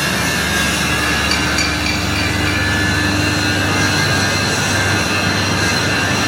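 Machining equipment running steadily: a continuous mechanical drone with a low hum and several steady whining tones.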